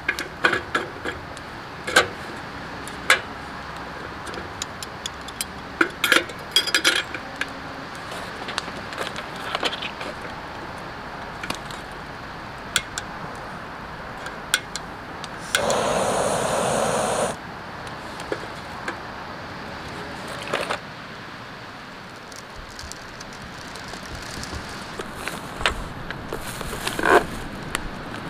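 Metal clicks, clinks and knocks of camping-stove and camp-table parts being handled and fitted together, with a steady hiss lasting under two seconds about halfway through.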